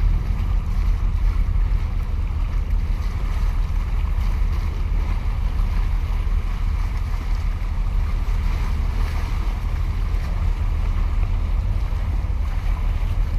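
Wind buffeting the microphone with a steady low rumble, over choppy seawater washing against concrete breakwater blocks.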